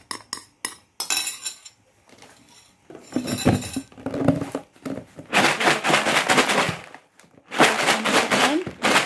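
A few spoon clinks against a dish, then dry fried kerupuk crackers rattling and rustling inside a plastic container as it is shaken to coat them in chili seasoning. The shaking is loudest in two long spells in the second half.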